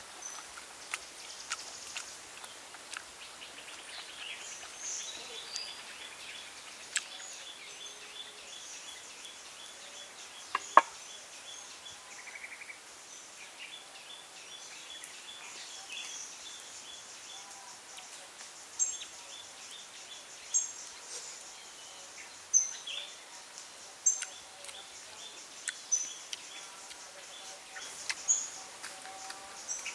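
Forest ambience: insects chirping in steady repeating rows, with a bird calling every second or two in the second half. A single sharp click, the loudest sound, about eleven seconds in.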